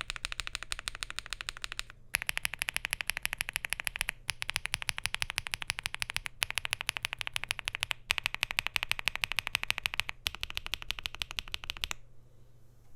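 Fast typing on a Bridge75 Plus mechanical keyboard with SC linear switches, an FR4 plate and PBT double-shot Cherry-profile keycaps in a gasket-mounted aluminium case: rapid keystroke clacks in runs of about two seconds with short pauses between, stopping about a second before the end.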